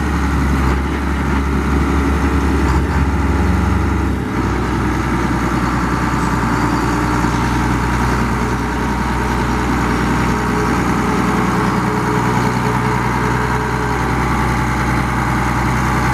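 Case International 7140 Magnum tractor's turbocharged six-cylinder diesel engine running steadily. Its deep low note eases off about four seconds in.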